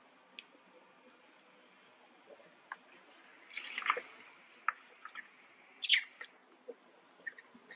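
Short, sharp animal chirps and squeaks, loudest about four and six seconds in, over a faint steady high drone.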